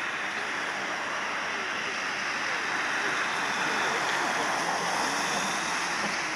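Four-engined Boeing 747 jumbo jet's engines running on the runway, a steady rushing jet noise that swells slightly midway.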